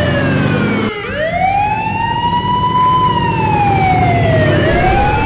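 Wailing emergency siren sound effect: a slow wail that rises for about two seconds and falls for about two. It cuts off and restarts about a second in, over a low steady rumble.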